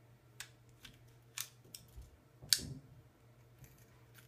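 A 2017 GMC Acadia plastic key fob and its metal key blade clicking as they are fitted back together: about half a dozen sharp clicks, the loudest about two and a half seconds in.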